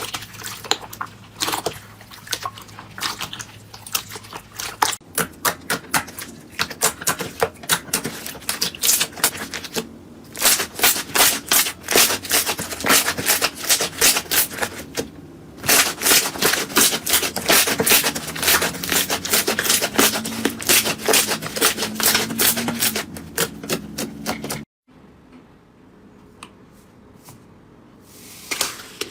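Slime being squeezed and pressed by hand, giving rapid sharp clicking and crackling pops. The sound changes abruptly several times as separate clips are cut together, and is quieter near the end.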